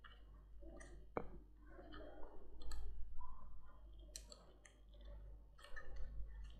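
Faint, irregular clicks and rubbing of a plastic toy wristwatch strap being fastened and adjusted on a child's wrist, with one sharper click a little over a second in.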